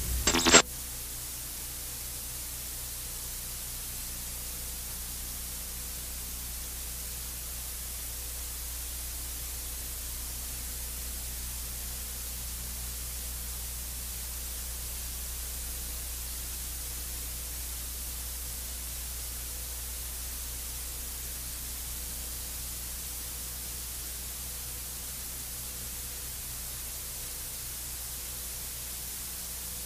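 Steady hiss over a low hum, with a few faint steady tones higher up: the empty noise floor of the recording, with no programme on it. The last of a voice and music cuts off within the first second.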